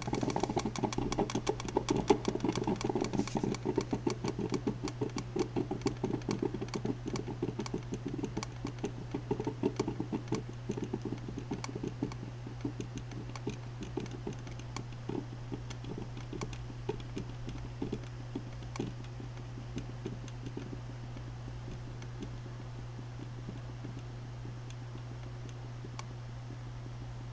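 Drip coffee maker sputtering and gurgling at the end of its brew cycle: a rapid, irregular crackle of pops that thins out and dies away over the first twenty seconds or so, over a steady low hum. This is the sign of the water reservoir running dry, with the heater pushing out the last water as steam.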